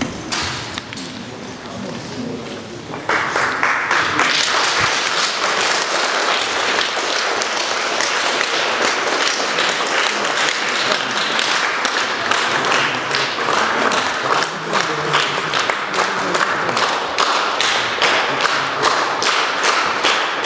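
A crowd applauding in a large hall, starting abruptly about three seconds in and continuing steadily, with the clapping falling into an even rhythm near the end.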